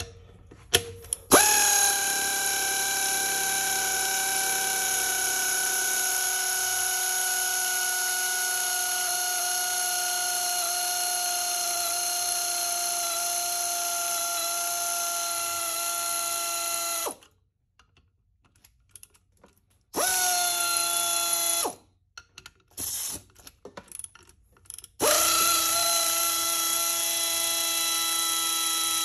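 Air ratchet running the screw of a valve spring compressor back off on an LS cylinder head, releasing the valve springs. It is a steady whine with hiss: one long run of about fifteen seconds that sags slightly in pitch, then a short burst, a few brief blips, and a final run of a few seconds.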